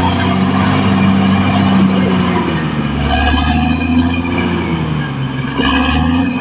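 Caterpillar D6R XL bulldozer's diesel engine working under load, a steady low rumble with the engine note rising and falling.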